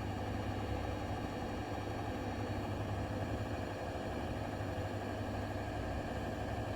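Bosch Serie 4 washing machine spinning, a steady drone with a low hum and no change in speed. The owner describes it as a loud strange noise from the drum and spindle at spin speeds while the brushless motor stays quiet; Bosch judged it normal.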